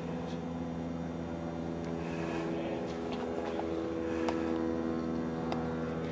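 Electric roller shutter's tubular motor running with a steady hum, with a few faint clicks.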